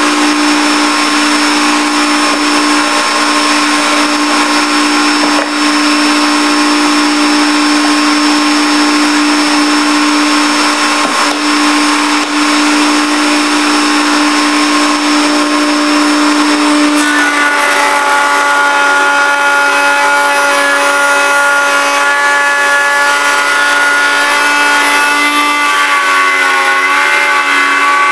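Table-mounted router running at speed, its bit cutting the curved profile of a hardwood corbel blank guided by a template jig. A steady high motor whine over cutting noise, its pitch shifting about two-thirds of the way through as the load on the bit changes.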